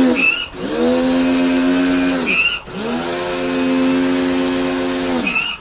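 Lutos electric pressure washer's motor and pump running in bursts of about two seconds, stopping and restarting twice: each run spins up rising in pitch to a steady hum, winds down falling in pitch, and gives a short squeak as it stops. The machine is working again with its pressure restored after its parts were replaced.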